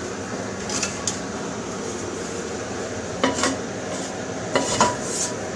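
A nonstick frying pan being handled and wiped on the stove: a few light knocks and scrapes about a second in, again near three and a half seconds, and loudest near five seconds, over a steady background hiss.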